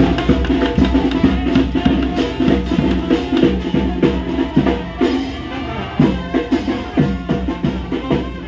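Music with drums and percussion keeping a steady, dense beat over sustained pitched instruments.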